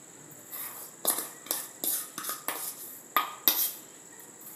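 A spoon clinking and scraping against a dish as a buttery biscuit-crumb mixture is spooned in. It makes a string of irregular knocks and scrapes, the loudest about three and a half seconds in.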